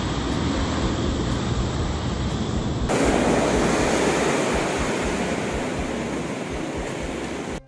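Steady rushing and churning of water in a passenger boat's wake. About three seconds in, the sound changes abruptly and becomes louder and fuller, and it cuts off suddenly at the very end.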